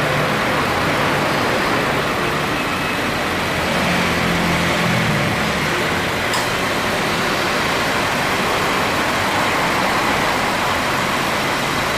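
2018 Subaru WRX's turbocharged flat-four idling steadily with the air-conditioning compressor running, the compressor making no abnormal noise after treatment for light wear. A single sharp click comes about six seconds in.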